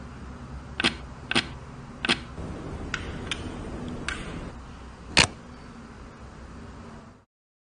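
Sharp plastic clicks, about seven of them spread over five seconds, the loudest about five seconds in, over a steady low hum: keycaps and a switch being pried out of a mechanical keyboard with a puller tool. The sound cuts off abruptly near the end.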